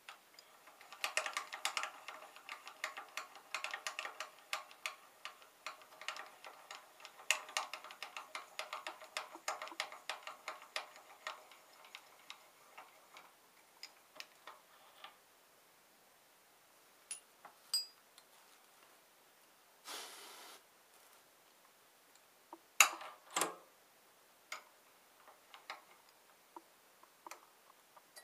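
Metal handling on a stopped lathe as a copper pipe is released from the tailstock centre and chuck. A rapid run of metallic clicks with a ringing tone lasts about the first dozen seconds, then come scattered ticks, a brief rustle and a couple of sharp metal knocks near the end.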